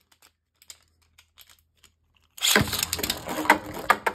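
Beyblade Burst Odax O2 top with a 4-star disc spinning in a plastic stadium: faint light ticking at first, then from about two and a half seconds in a loud, continuous rattling and scraping of plastic on plastic.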